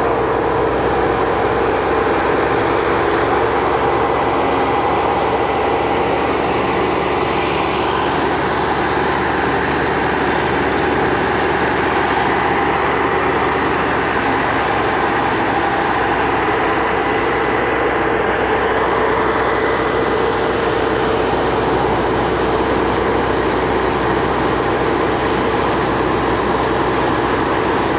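Heavy drilling-rig machinery running steadily at a constant pitch, mixed with the rush of a torrent of water gushing from the borehole into an open channel.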